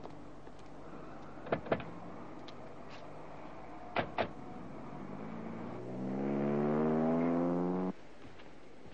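Car doors on a BMW 525 saloon clunking shut, two knocks and then two more a little over two seconds later. Then the engine runs up, its pitch rising steadily, and cuts off suddenly near the end.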